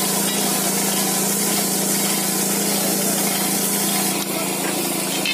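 A machine running steadily: a constant low hum under a rushing hiss, the hiss easing a little about four seconds in.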